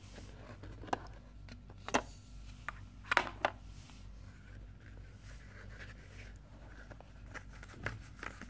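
Fingers handling a cardboard phone box and its insert tray: a handful of sharp taps and clicks with light scraping, the loudest about three seconds in.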